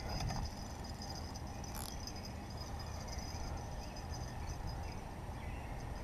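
Steady outdoor background: a high, even insect chorus over a low rumble, with one brief high blip about two seconds in.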